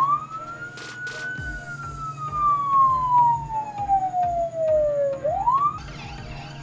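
Police car siren wailing: one slow wail that rises, falls steadily over about four seconds, then starts to rise again before it cuts off near the end. Under it is a steady low beat.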